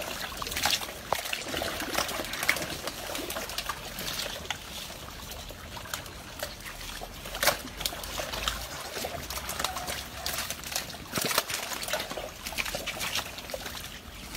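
Crocodiles scrambling over one another in shallow water while being fed: wet splashing and trickling with irregular sharp knocks, two of them louder, about halfway through and again a few seconds later.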